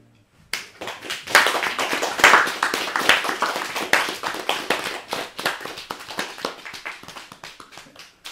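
A small audience applauding the end of a song. The clapping starts suddenly about half a second in, is loudest over the next few seconds and thins out toward the end.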